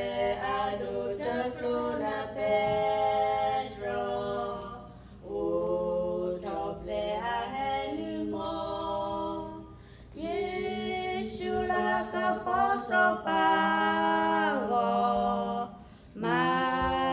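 Two women singing a hymn together into a microphone, unaccompanied, in phrases of long held notes with a short pause about every five seconds.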